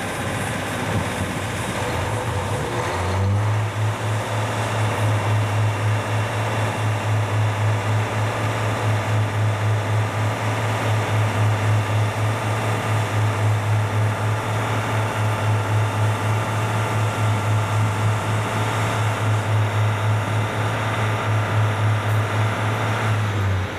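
Steam locomotive C58 239 moving slowly on a shunting move: a low hum that pulses about twice a second over a steady hiss. The hum starts a few seconds in and stops just before the end.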